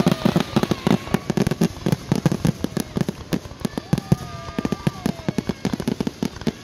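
Ground-fired fireworks going off in a rapid, dense string of pops and bangs, several a second, with no letup.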